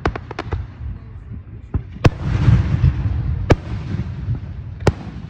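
Aerial fireworks bursting overhead. A quick run of sharp cracks at the start, then the loudest bang about two seconds in with a rumbling crackle after it, and single bangs later on.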